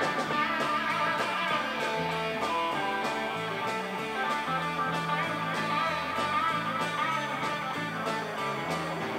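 Live rock band playing an instrumental passage: guitar to the fore over bass guitar and a drum kit keeping a steady beat.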